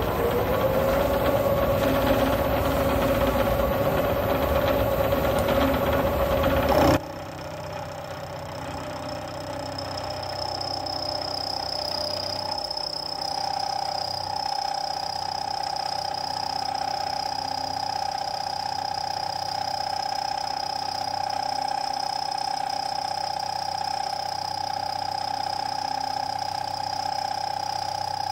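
Milling machine cutter running at 900 RPM, cutting a gear tooth space into a hardened EN25 alloy steel shaft in a heavy single pass. A loud, rough cutting noise with a whine that rises in pitch over the first second stops abruptly about seven seconds in, giving way to a quieter, steady whine from the machine.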